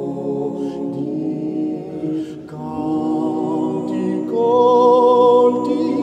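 Background music of unaccompanied voices singing long held notes together, with a louder, higher voice coming in about four seconds in.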